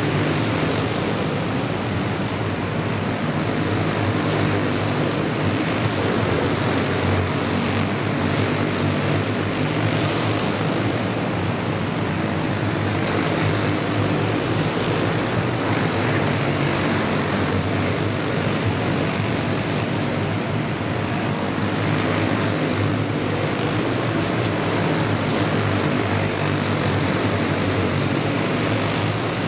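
A pack of dirt-oval racing go-karts running flat out around the track, their small single-cylinder engines droning together, swelling every few seconds as karts sweep past.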